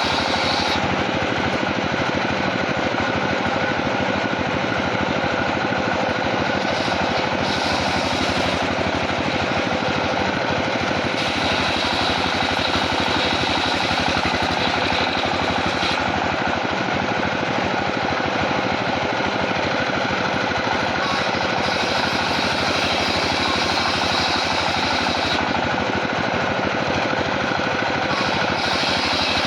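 Sawmill machinery running loudly and steadily with a fast, rattling pulse. Its character changes abruptly every few seconds.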